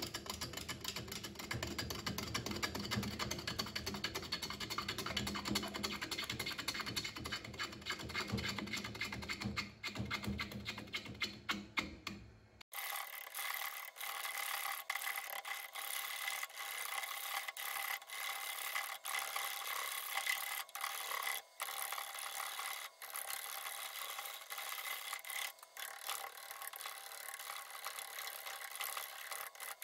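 Gouge cutting a spinning willow bowl blank on an Omega Stubby wood lathe: a steady scraping cut with small irregular ticks. About halfway through, the sound suddenly turns thinner as its low end drops away.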